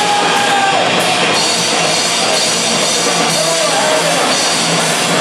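Live rock band playing loudly: electric guitar, bass guitar and a drum kit with cymbals, with the bassist singing into the microphone.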